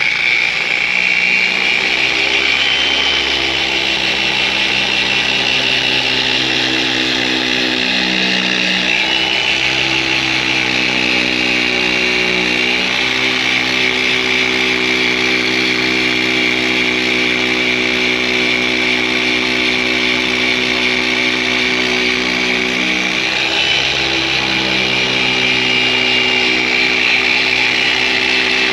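Electric machine polisher with a foam pad running steadily at speed setting 4.5, polishing a headlight lens in the final polishing step: a continuous motor whine whose pitch shifts slightly a few times.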